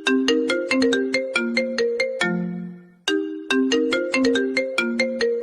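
iPhone ringtone playing: a quick melody of short notes that ends on a lower, longer note fading away, with the phrase starting over about three seconds in.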